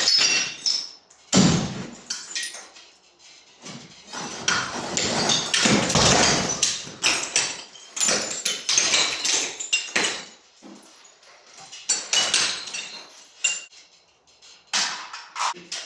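Demolition of brick masonry: irregular hammer blows and crashing of broken brick and debris, coming in bursts of a second or two with short pauses between.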